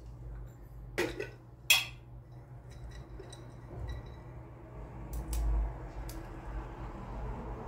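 Small hard objects being handled and set down: two sharp clicks about a second apart early on, then faint ticks and a soft low thud.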